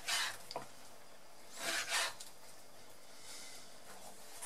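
Chef's knife slicing through slab bacon onto a plastic cutting board: two short cutting strokes, one right at the start and another about two seconds in.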